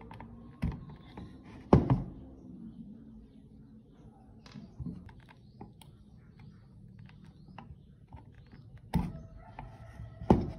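A few sharp knocks and taps from a circuit board and soldering iron being handled on a wooden table, the loudest pair about two seconds in and another pair near the end.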